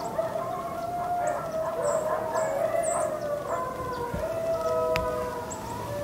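Coyotes howling in a chorus: several long, overlapping, wavering howls at once, with faint bird chirps.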